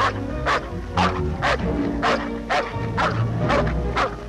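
A dog barking over and over, about two barks a second, over background music with low sustained notes.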